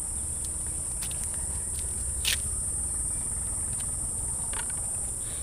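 Steady high-pitched insect chirring, over a low rumble, with a few faint clicks and one sharper click about two seconds in.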